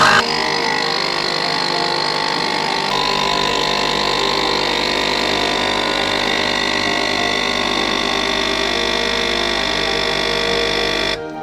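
Nespresso capsule coffee machine brewing, its pump running with a loud steady buzz. A low hum joins about three seconds in, and the sound cuts off abruptly near the end.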